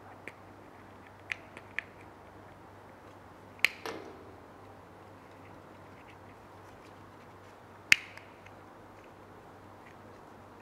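Sharp plastic clicks and snaps as gloved hands work the protective top cover off a TH5241 print head. Small clicks come near the start, then two loud snaps about 3.5 and 8 seconds in, over a faint steady low hum.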